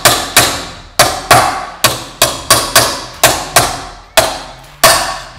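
Small hammer tapping a new seal into a Cadillac 390 front timing cover through a driver held in the seal bore: about a dozen sharp metallic strikes, two or three a second, each ringing briefly.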